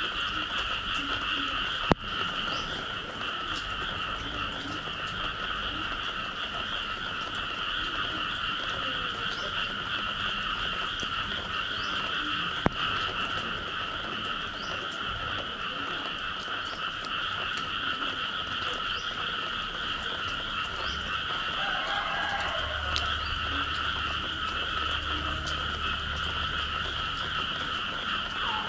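Dense, steady chorus of frogs calling after rain, with two sharp clicks, one about two seconds in and one near the middle.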